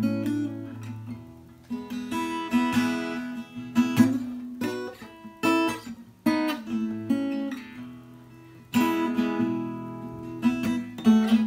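Background music: an acoustic guitar strumming chords with a steady beat.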